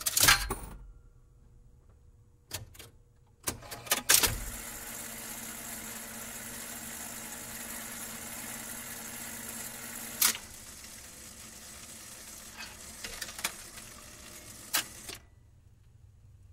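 Jukebox record changer at work: several sharp mechanical clicks and clunks, then the stylus on a record giving a steady hiss with fine crackle and a faint hum. A few more clicks sound before it cuts off near the end.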